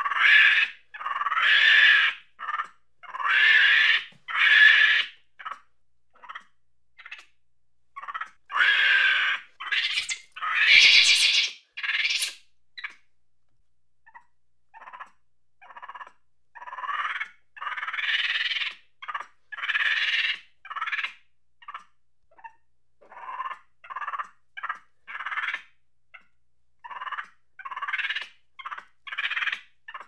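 Monkey chattering angrily. A run of loud calls, each about a second long, fills the first half. After a brief pause comes a quicker string of short, quieter chattering calls, about two a second.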